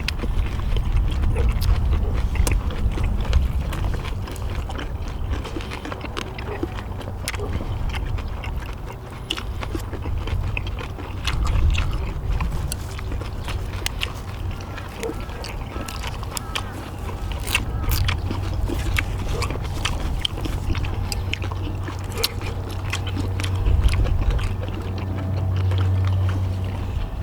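People eating: chewing with frequent small clicks of chopsticks and utensils, over a steady low rumble.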